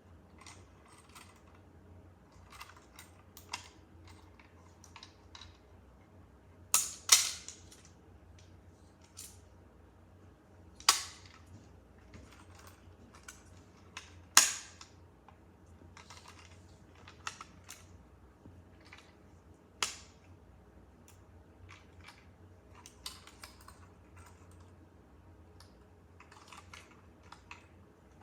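Fire alarm pull station being pulled and worked by hand: a series of sharp clacks, the loudest a close pair about seven seconds in and single ones about eleven, fourteen and twenty seconds in, with fainter clicks and rattles between. No alarm tone sounds.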